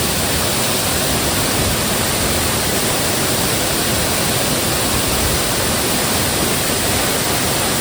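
Strong jungle waterfall pouring down right at the microphone: a steady, loud rush of falling water.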